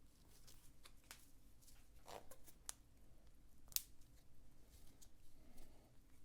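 Faint rustling of a nylon watch strap with small clicks as it is threaded and buckled onto a wrist, and one sharper click a little under four seconds in.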